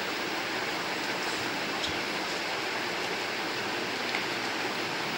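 Steady background hiss with a few faint light ticks of cardboard being handled and folded.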